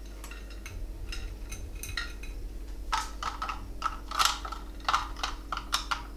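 Gummy bears being dropped by hand into small plastic ice-lolly moulds and picked out of a glass: a run of light, irregular clicks and taps, sparse at first and busier in the second half.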